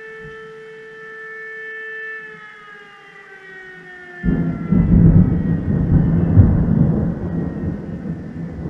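Fire station alarm siren wailing at a steady pitch, then winding down with its pitch falling from about two seconds in. About four seconds in, a loud clap of thunder breaks in and rumbles on, slowly fading.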